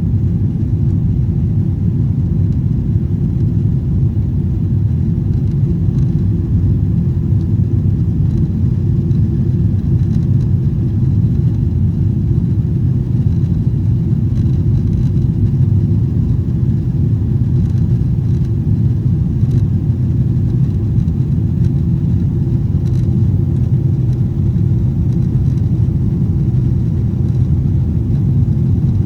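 Steady low rumble inside the cabin of a Boeing 777-300ER, the engine and airflow noise holding even with no change in pitch or level.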